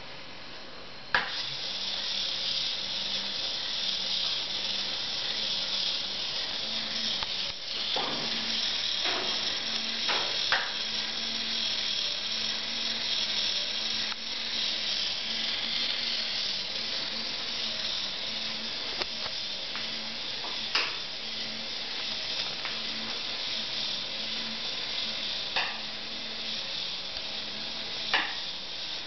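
Sound module of an RC model rescue cruiser switched on about a second in, its speaker giving a steady hissing noise with a faint low beat repeating about once a second. A few sharp clicks stand out here and there.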